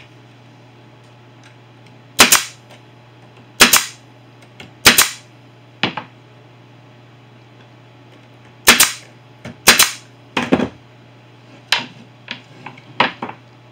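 Pneumatic brad nailer firing 1.5-inch brad nails into a glued plywood bracket: about nine sharp shots a second or so apart, with a pause of a few seconds halfway.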